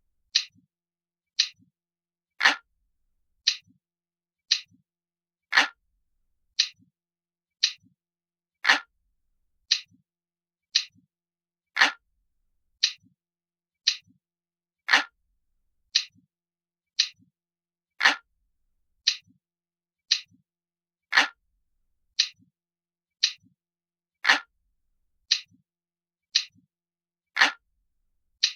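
Analog clock ticking steadily, about one tick a second, with every third tick louder and fuller.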